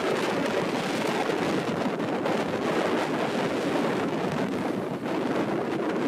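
Steady wind rushing over rippling shallow lagoon water, a continuous even noise with no tones or distinct splashes.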